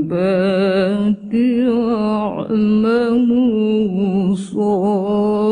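A solo woman's voice reciting the Quran in the melodic tilawah style, with long, ornamented held notes that quiver in pitch and short breaks between phrases.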